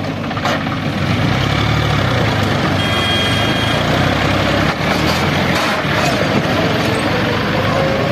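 John Deere 5038 D tractor's three-cylinder diesel engine running steadily under load, pulling a trailer heaped with sand. A brief high tone sounds about three seconds in.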